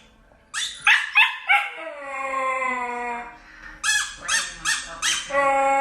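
A dog barking and howling: a few short barks, a long howl, several more short barks, then another long howl starting near the end.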